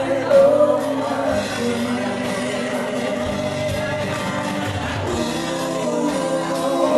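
Live band performing a song: a woman singing into a microphone over guitar and drums.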